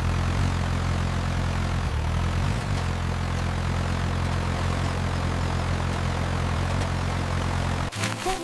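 Combine harvester engine running: a steady low drone with a noisy whir over it, starting abruptly and cutting off near the end.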